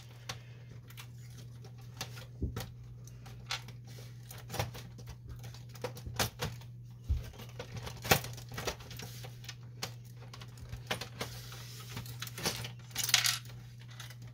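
Scattered clicks, knocks and rattles of plastic and metal parts as the print-head carriage of a Canon Pixma MG5520 inkjet printer is worked loose from its metal rail, with a short cluster of rattling near the end. A steady low hum runs underneath.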